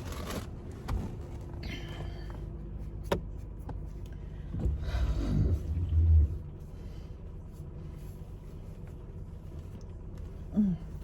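Car running with the heater blowing, heard from inside the cabin as a steady low hum. A sharp click comes about three seconds in, and louder low bumps around five to six seconds in.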